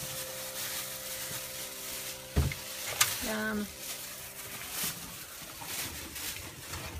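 Stovetop pot of water at a rolling boil with crabs in it, bubbling and hissing with many small pops, the water brought back to the boil to cook the crabs. A dull knock comes about two and a half seconds in, followed by a sharp click.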